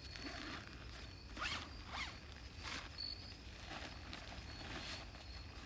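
A zipper pulled in several quick rasping strokes, the strongest about a second and a half, two and two and three-quarter seconds in, with weaker ones later.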